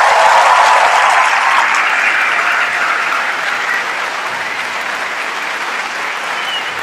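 A large audience applauding, loudest at first and easing slightly after a couple of seconds.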